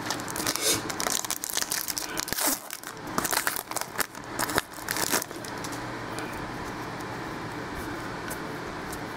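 A trading-card pack wrapper crinkling and tearing as it is opened, for about five seconds, then only a steady low hum.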